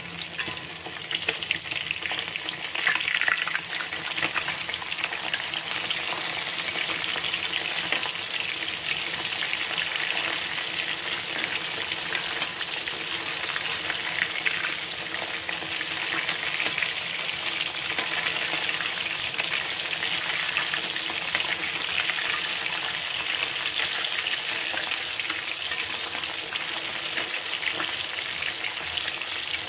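Fish pieces frying in hot oil in a kadhai (Indian wok): a steady, dense sizzle with crackling, a little louder for the first few seconds.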